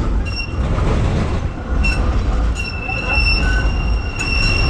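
Tram wheels squealing on a curved stretch of track: a high, steady squeal that comes in short bursts at first and is then held for about two seconds in the second half, over a low rumble.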